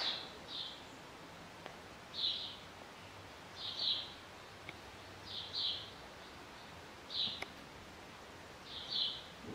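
A bird chirping repeatedly, a short high call about every second and a half, with a couple of faint clicks in between.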